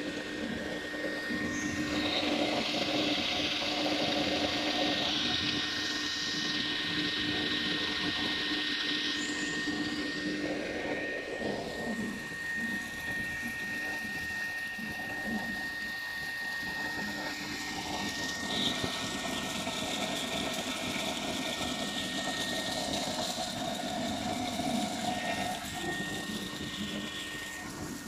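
Label slitting and rewinding machine running: a steady mechanical hum with a constant high whine from its motor and gear drive.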